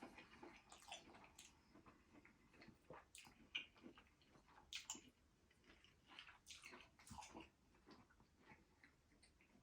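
Faint, wet eating sounds: scattered clicks and smacks of chewing saucy lobster tail, a few of them louder about three and a half, five and seven seconds in.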